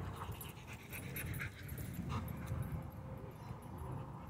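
Dogs panting while they play and wrestle, fairly quiet.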